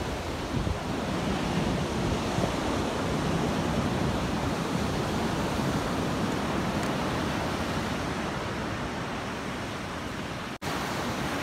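Ocean surf washing onto a sandy beach, a steady rush of breaking waves, cut off for an instant near the end.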